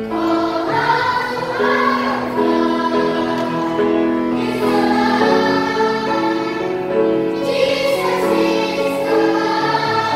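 Children's choir singing a Christian song, with long held notes that change pitch every second or so.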